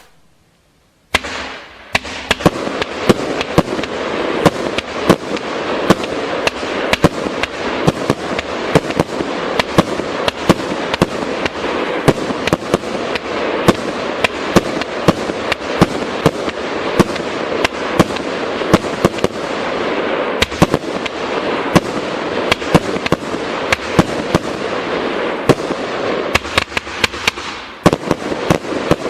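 Blue Planet 500-gram firework cake by Doremi Fireworks firing. About a second in it starts a dense, continuous crackle packed with frequent sharp pops and bangs.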